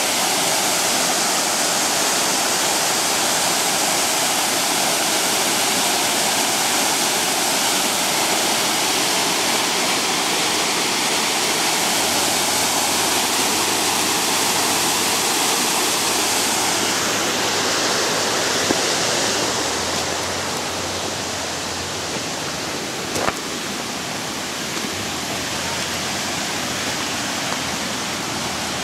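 Waterfall: a steady rush of falling water. About two-thirds of the way through it turns a little quieter and less hissy, and one short click comes near the end.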